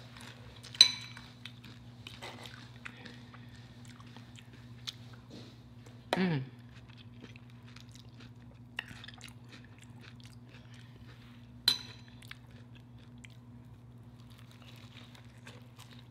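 Close-up chewing and crunching of a deep-fried taco, with many small wet mouth clicks and a few sharper clicks. A short hummed "mmm" about six seconds in, over a steady low hum.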